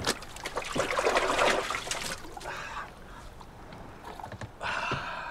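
Water splashing and sloshing in a plastic bucket, loudest and busiest in the first two seconds, with a second, shorter splash near the end.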